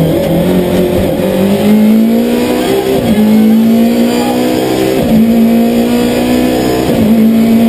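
Rally car engine heard from inside the cabin under hard acceleration: the revs climb over the first two seconds, then hold high, with brief dips about three, five and seven seconds in.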